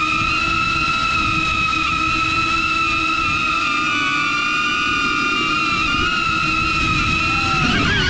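DJI Avata FPV drone with Axis C175 motors flying: a steady high propeller whine, with strong wind buffeting the microphone. The whine rises in pitch near the end as the motors speed up.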